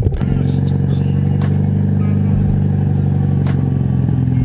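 Mitsubishi Lancer Evolution X's turbocharged 2.0-litre four-cylinder engine running steadily under way, with new coil packs fitted. Its pitch steps slightly near the end.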